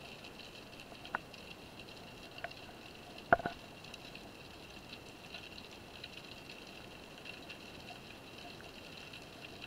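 Underwater ambience heard through an action camera's waterproof housing: a faint steady hiss with a high crackle, broken by a few sharp knocks, the loudest a double knock about three seconds in.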